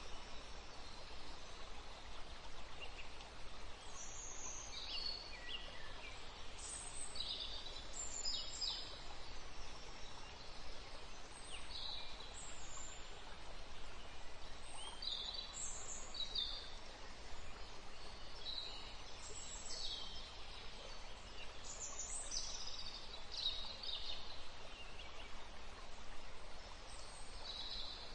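Birds chirping in short, irregular calls over a steady low hiss of background ambience; no mixer motor is heard.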